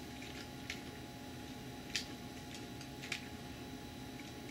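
Keys of a Commodore 128 keyboard pressed one at a time to type a LOAD command, a handful of separate clicks at an uneven pace, the sharpest about two and three seconds in. The keyboard is responding again after the CIA chip was replaced.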